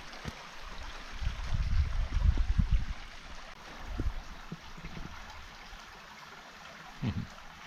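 A creek running steadily over rocks, with a continuous rushing and trickling. Loud low rumbles come through between about one and three seconds in.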